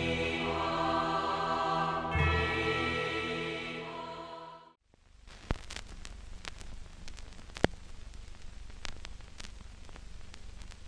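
Choir-like intro music with held voices and two deep booming hits, fading and cutting off about four and a half seconds in. Then a campfire crackles, with irregular pops and snaps over a low hiss.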